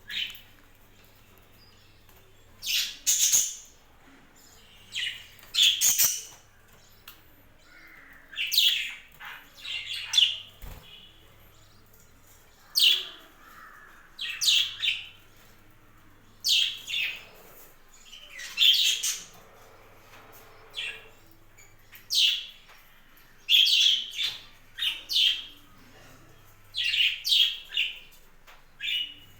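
Budgerigars chirping: short, sharp, high-pitched calls, often in quick pairs or clusters, every second or two.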